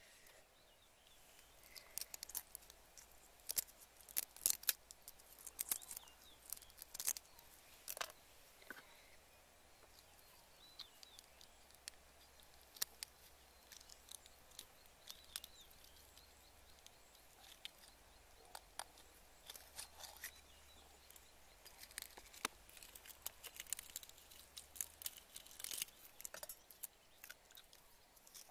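Faint, irregular crackling and clicking of boiled duck eggshells being cracked and peeled by hand, with a metal spoon scraping against the shell as the egg is scooped out. The clicks come thickest in the first few seconds and again near the end.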